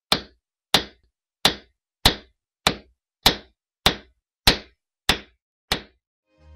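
Ten sharp, evenly spaced knocks, a little under two a second, each dying away quickly, with silence between. Accordion music begins to fade in right at the end.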